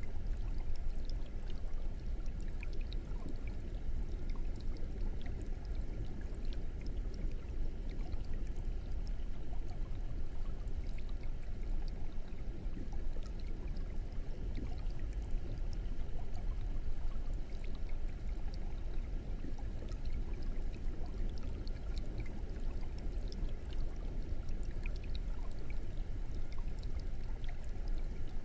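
Aquarium air stone bubbling: a steady stream of bubbles rising and trickling up through the water, with small pops scattered throughout.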